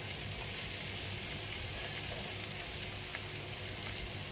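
Minced garlic, dried chillies and julienned ginger sizzling gently in hot oil in a frying pan, stirred with a wooden spatula.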